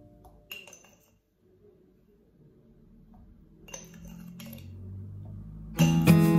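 Two light clinks of a metal spoon against a small glass jar, about half a second in and again near four seconds in, while salt and sugar are spooned out. Acoustic guitar music comes in loud near the end.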